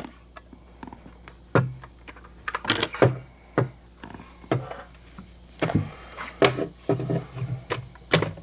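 Irregular metallic clicks, taps and knocks as hand tools and door hardware are handled and fitted inside a car door, about a dozen sharp hits spread unevenly.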